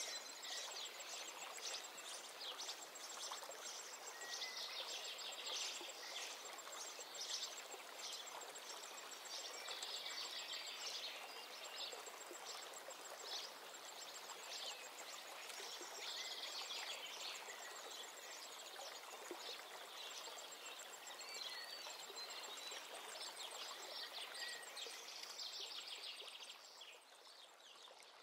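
Steady stream-like rushing hiss with small bird chirps scattered through it and a fine, high trill above; the level drops near the end.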